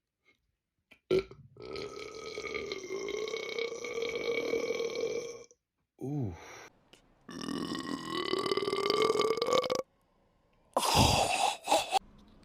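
Men burping loudly several times in succession: a long drawn-out belch of about four seconds, a short one falling in pitch, another long belch that rises in pitch, and a loud short burp near the end.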